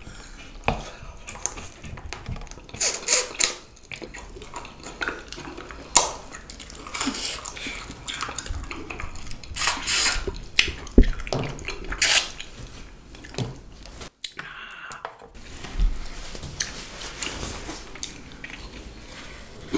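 Close-miked eating sounds: wet chewing and biting of soy-sauce-marinated seafood, with irregular clicks and clinks of cutlery and dishes. The sounds break off briefly about fourteen seconds in.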